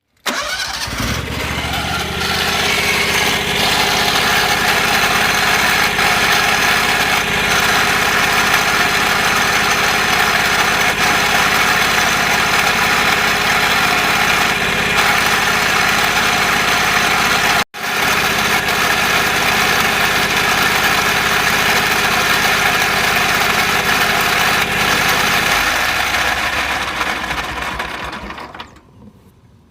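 Wright Stander stand-on mower's engine running steadily and loud. The sound drops out for an instant about 18 seconds in and fades away over the last few seconds.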